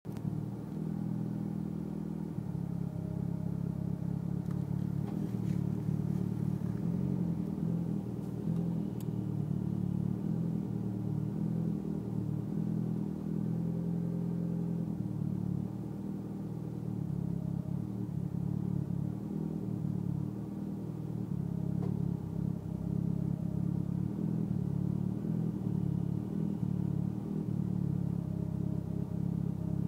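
Mitsubishi Lancer Evolution X's turbocharged 2.0-litre four-cylinder idling roughly, with an uneven, lumpy beat.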